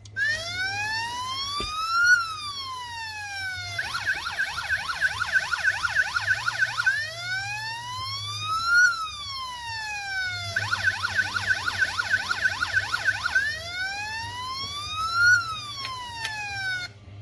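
Electronic police siren from the Siku 5401 toy police boat's sound module, switching between a slow rising-and-falling wail and a fast warble: three wails with two warbles between them, then it cuts off.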